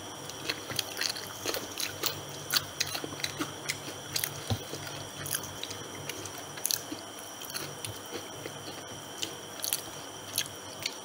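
Close-up eating sounds of battered fried chicken feet being bitten and chewed: irregular crisp crackles and clicks of the coating and bones, with wet chewing in between.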